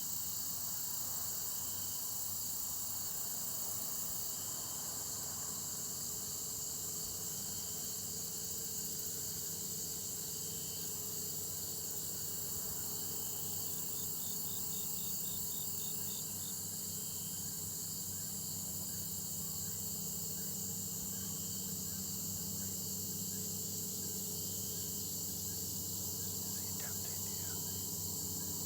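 Steady high-pitched chorus of crickets and other insects, with a short, rapidly pulsing insect call joining about halfway through.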